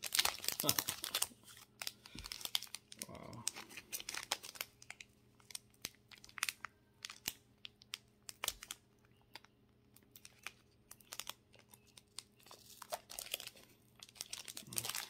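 Foil wrapper of a Pokémon card booster pack crinkling and tearing as it is worked open by hand: irregular runs of sharp crackles with short pauses, densest at the start. The pack is hard to tear open.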